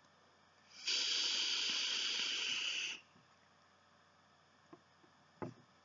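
Steady hiss of air rushing through the fully opened airflow of an AB1 Mirage V3 rebuildable dripping atomizer as a long puff is drawn through it. It starts about a second in and lasts about two seconds. A short soft knock follows near the end.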